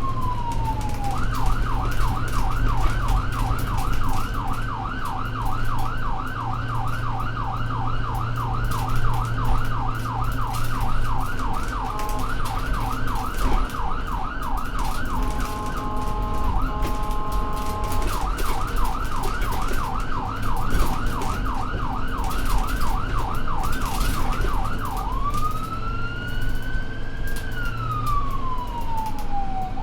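Emergency vehicle siren over a low engine rumble. It opens on a slow falling wail, switches to a fast yelp of about four sweeps a second, briefly gives way to a steady blaring tone mid-way, returns to the yelp, then goes back to a slow rising and falling wail near the end.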